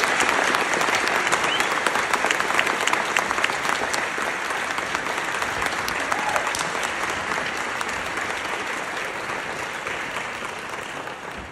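Audience applauding steadily, slowly dying away near the end.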